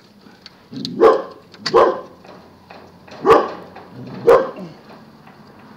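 A dog barking four times, short single barks with uneven gaps.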